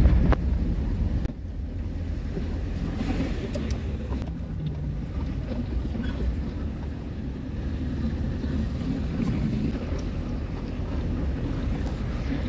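Mitsubishi L300 van driving in city traffic, heard from inside the cab: a steady low rumble of engine and road noise with some wind noise.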